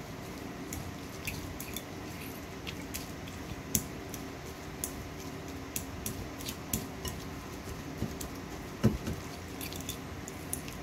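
A kitchen utensil clicking and tapping against a bowl while mashing fermented bean curd, with irregular light clicks and one louder knock near the end, over a steady low hum.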